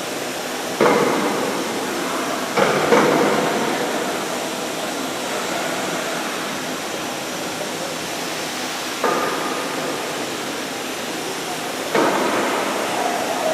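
Woodworking machinery running with a steady whirring noise, broken by five sudden clunks: about a second in, twice near three seconds, about nine seconds in and near the end, each fading over a second or so.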